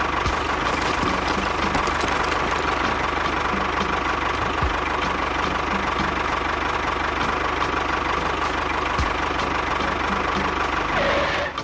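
A small engine or motor running steadily with a fine regular ticking and a steady whine, cutting off abruptly near the end.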